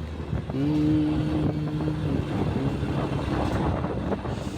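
Vehicle engine running on the move. A steady pitched drone comes in about half a second in, holds, and fades out after two or three seconds.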